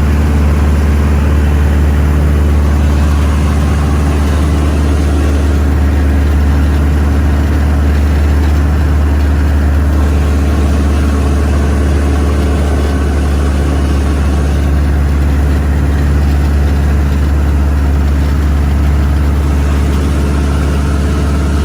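An engine running with a steady low hum that holds one pitch throughout.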